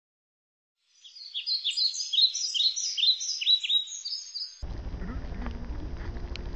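Songbird chirping: a quick run of high, repeated chirps, each dropping in pitch. It starts about a second in and cuts off abruptly after a few seconds, giving way to a steady low outdoor rumble with a few faint clicks.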